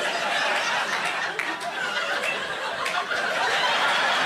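Comedy club audience laughing, with scattered claps joining in and growing toward the end.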